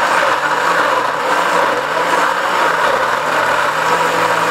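Countertop blender running at high speed, crushing ice and cucumber chunks in syrup into a smooth drink. The motor's pitch wavers for the first few seconds, then holds steady as the mix turns smooth.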